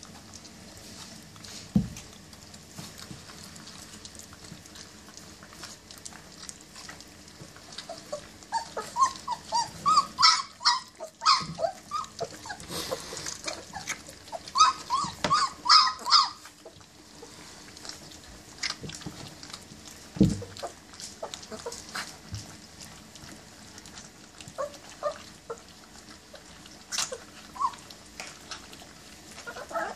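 Twenty-day-old German Shepherd puppies giving short high-pitched calls in quick runs, the densest about a third of the way and halfway through, with scattered single calls later, while they eat from a steel feeding pan. Two dull thumps stand out, one about two seconds in and one about two-thirds through.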